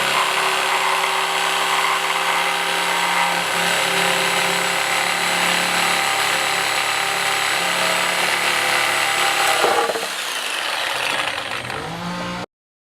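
Harbor Freight 6 amp reciprocating saw running with a steady motor whine. About ten seconds in the pitch shifts and the sound gets a little quieter, then it cuts off suddenly just before the end.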